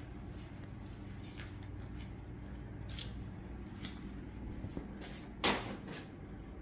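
Ford Bronco idling, a low steady hum, with faint handling clicks and a short rustle about five and a half seconds in.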